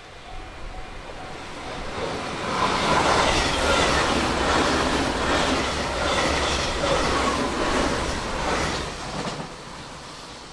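JR Shikoku 8000 series electric train passing at speed on wet track. It rises to a loud rush with rhythmic wheel clacks over the rail joints, then fades near the end. A level-crossing bell dings faintly at the start.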